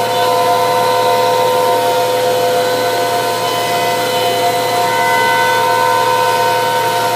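CNC router spindle running at a steady speed while machining a shaker cabinet door: a steady, multi-toned whine over cutting hiss, with no change in pitch.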